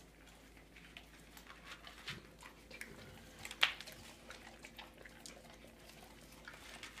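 A pit bull and a cat eating dog food from a bowl: faint, irregular clicks and chewing noises, with one sharper click about three and a half seconds in.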